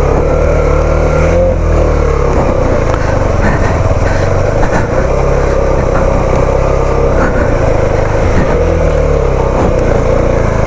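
Motorcycle engine running steadily, its note wavering slightly up and down in pitch.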